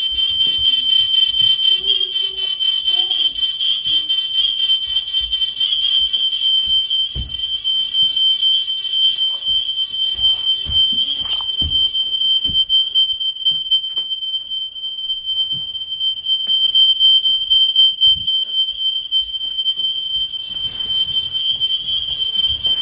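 Household smoke alarm sounding continuously in one steady, shrill high-pitched tone, with a few low knocks underneath. It was set off by the power outage rather than by a fire.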